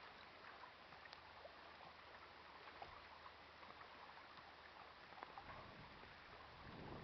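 Faint lapping of small waves on lake water, with scattered small ticks and splashes. A low rumble comes in near the end.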